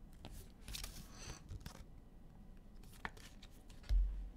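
Trading cards and pack wrappers being handled: a few soft rustles and sliding scrapes, then a dull low thump near the end.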